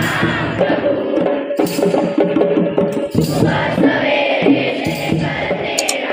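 Harmonium playing held notes, accompanied by tambourine jingles and hand-drum strokes, with a group of voices singing along.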